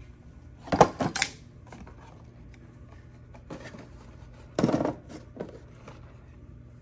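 Trading cards being handled and set down on a table: short rustles, clicks and light clatters. The loudest comes about a second in and another near five seconds, with fainter ones between.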